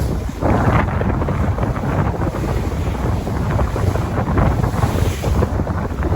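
Ocean waves washing in continuously, with a surge of surf about half a second in, mixed with wind rumbling on the microphone.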